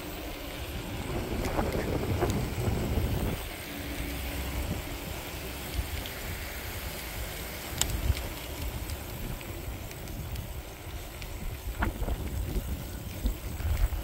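Wind buffeting the microphone while riding an electric bike along an asphalt street, over the low rumble of the ride. A few sharp clicks stand out, about eight and twelve seconds in.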